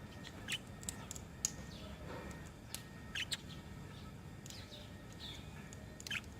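Budgerigars chirping: scattered short, sharp chirps, some sweeping down in pitch, over a low steady background hum.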